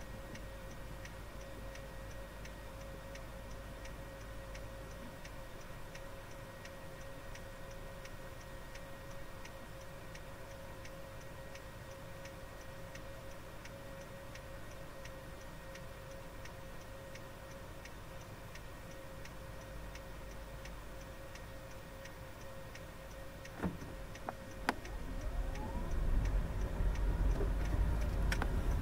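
Car's turn-signal indicator ticking steadily inside the cabin, about three ticks a second, over a quiet engine idle. Near the end there is a knock, then a low rumble of engine and road noise rises as the car moves off.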